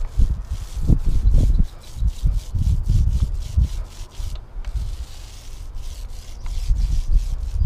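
Paint roller being worked back and forth over wood, a rubbing sound in uneven repeated strokes.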